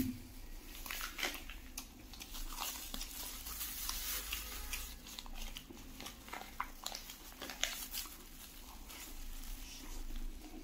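Chewing and biting into a crisp egg-filled pancake (jidan guanbing), with many small crunchy clicks, and the plastic bag around it crinkling now and then.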